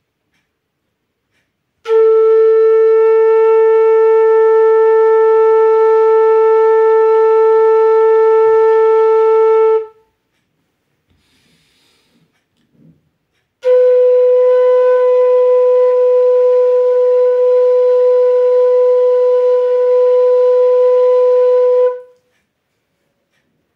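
Bansuri (bamboo transverse flute) holding two long, steady single notes of about eight seconds each, with a short pause for breath between them; the second note sits slightly higher than the first. Long-note sargam practice.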